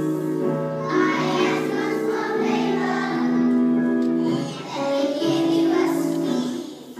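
Children singing together in a musical, a song of held notes that change pitch every second or so.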